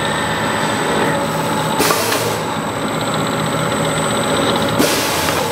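CNC beading machine running steadily, spinning a stainless steel bottle while rollers curl the sharp rim of its mouth into a rounded bead. A constant motor hum and a high whine, with two short louder hisses about two and five seconds in.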